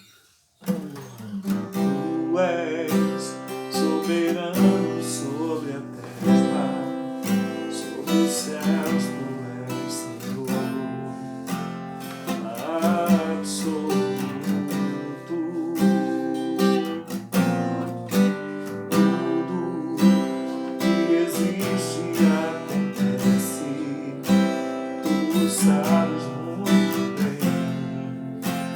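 Acoustic guitar playing worship-style music, strummed and picked chords with a melody line over them.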